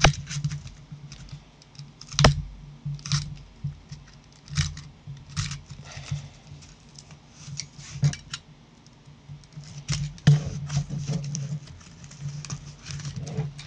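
Cardboard and blue painter's tape of a card mailer being cut, pried and peeled apart with a utility knife: scattered clicks, scrapes and crackles, the sharpest about two seconds in.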